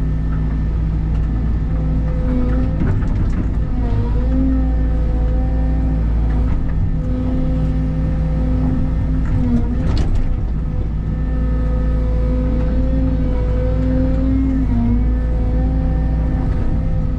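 Cat excavator's diesel engine running steadily with a hydraulic whine, its pitch dipping briefly under load three times as the machine works. A sharp crack about ten seconds in, with a few lighter knocks.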